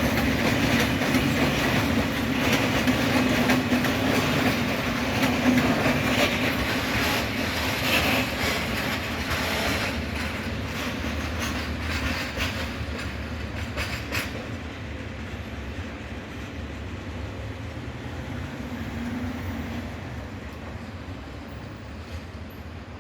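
Freight train of Eas open wagons and Fas hopper wagons rolling past, the wheels clattering over rail joints, growing steadily fainter from about halfway as the train moves away.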